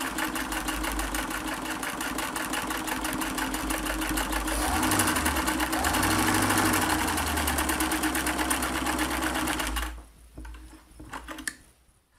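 Vintage Singer 328K sewing machine running steadily, stitching through eight layers of folded muslin. The rapid, even needle strokes carry a motor hum and grow louder from about four seconds in. The machine stops sharply about ten seconds in, leaving a few light clicks. It sews this thickness with no trouble.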